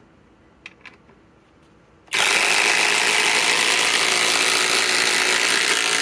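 Two cordless impact drivers hammering at the same time, a Masterforce Boost and a SKIL PWR CORE 20, driving a 5-inch ledger lock and a 4-inch timber lock structural screw into a wooden beam. After a few faint clicks, they start together about two seconds in and keep up a loud, steady rattle.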